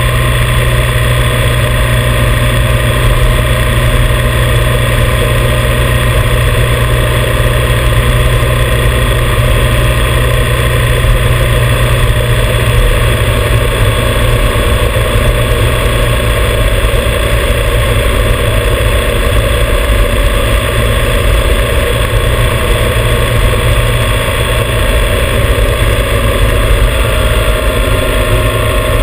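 Motorcycle engine running at a steady cruise, mixed with a constant rush of wind and road noise on a camera mounted on the bike. A loud, unbroken low rumble with no gear changes or revs standing out.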